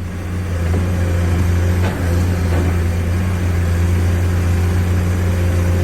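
Yigong RC excavator's motor running with a steady low hum, with a faint knock about two seconds in.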